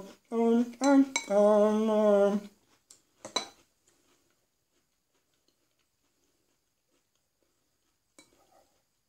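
A man hums a few wordless notes and holds the last one with a wavering pitch. A metal spoon clinks against a ceramic cereal bowl about three seconds in, and faintly once more near the end.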